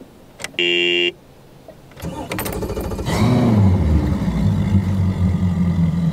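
Key-on warning horn beeps once for about half a second. About a second later the starter cranks the brand-new Mercury Pro XS 225 four-stroke outboard. It catches about three seconds in, flares briefly in pitch and settles into a steady idle.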